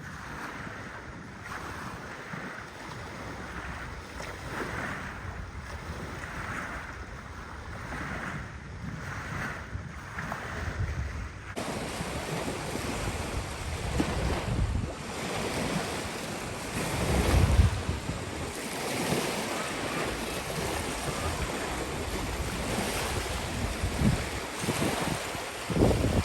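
Wind buffeting the microphone over the wash of waves on the shore, in uneven gusts that get louder in the second half.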